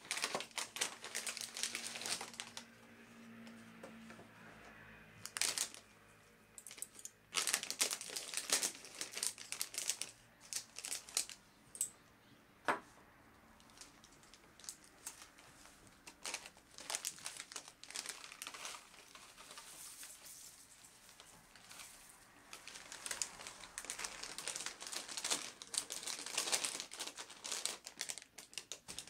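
Clear plastic bag crinkling in spells as it is handled and opened, with one sharp click a little before the midpoint.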